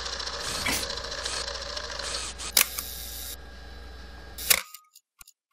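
Old-film intro sound effect: a steady crackling hiss over a low hum, broken by sharp mechanical clicks, the loudest about halfway through and again near the end. It then cuts off suddenly to silence.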